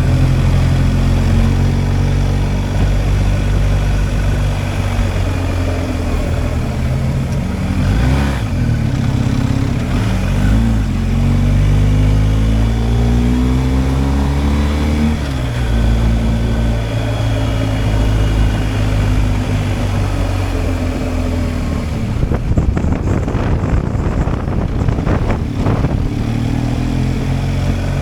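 BMW R 1250 GSA's boxer-twin engine running under way, its pitch rising and falling several times through the middle as the revs change.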